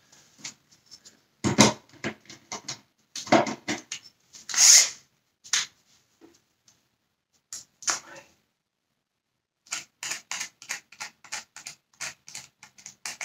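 Handling noise from taking apart a plastic vacuum-cleaner housing: scattered clicks and knocks of a screwdriver and plastic parts, a brief scrape about a third of the way in, and a quick run of clicks, about five a second, for a couple of seconds near the end.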